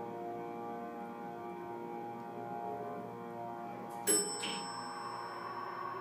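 Evans elevator's motor running with a steady hum of several tones as the car travels up. A sharp click about four seconds in, followed by a faint high ringing.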